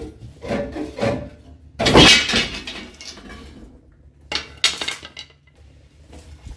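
Rusty steel leaf-spring leaves clanking and scraping against each other as the spring pack is taken apart by hand. There are several separate metallic clanks, the loudest about two seconds in.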